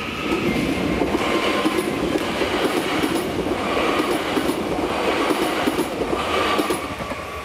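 Regional passenger train passing across a level crossing at close range: a steady rumble of wheels on rail with scattered clicks over the rail joints, fading near the end as the train clears.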